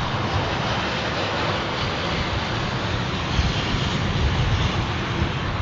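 Boeing 787 Dreamliner jet airliner on a low, gusty landing approach: a steady, loud rush of jet engine noise mixed with gale-force wind buffeting the microphone.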